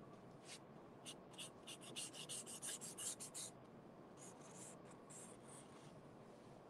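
Marker pen drawing lines on painted corrugated cardboard: a run of faint, quick scratchy strokes, densest from about one to three and a half seconds in, then a few more.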